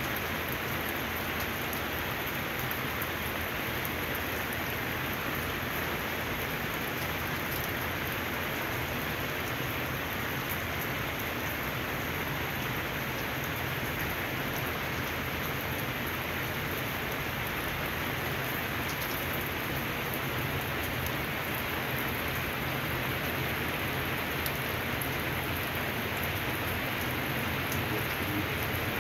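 Steady rain falling on wet pavement: a constant even hiss with scattered ticks of individual drops.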